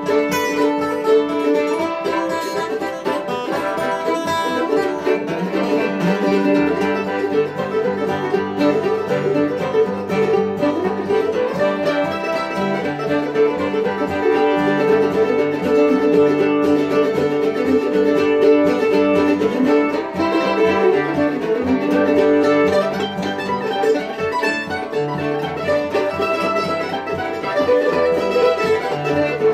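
Acoustic string band playing a bluegrass tune: a fiddle carrying the melody over a strummed acoustic guitar and a third plucked string instrument, steady throughout.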